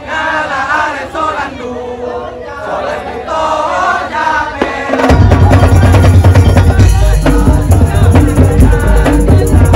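A group of voices singing, then about five seconds in a Madurese daul (tong-tong) drum ensemble comes in loud, with heavy bass drums and fast percussion under a melody line.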